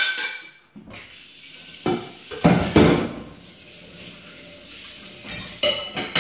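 Kitchen tap running into a stainless steel sink while dishes are rinsed, with a clink at the start, a few louder knocks and clatters of crockery in the sink about two to three seconds in, and more clinks near the end.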